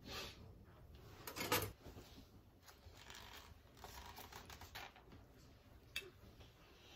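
Faint rustling and tapping of objects being handled, with a louder rustle about a second and a half in and a sharp click near the end.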